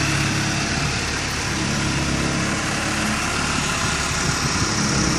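Porsche 944's inline-four engine idling steadily, with a slight rumble in the exhaust that the seller puts down to a loose exhaust hanger.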